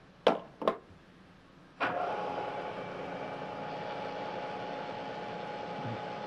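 Two sharp clicks, then the milling machine's motor and spindle switch on and run steadily with a constant tone. This is the start-up for a roughing cut.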